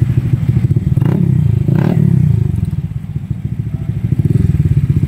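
Honda Click scooter's single-cylinder four-stroke engine running through an aftermarket Kenochi exhaust, a steady rapid low exhaust pulse. It eases off briefly about three seconds in, then picks up again, with a couple of short knocks near the start.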